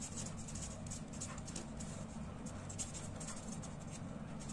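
Faint scratching of a pen writing on paper, in short irregular strokes, over a steady low electrical hum.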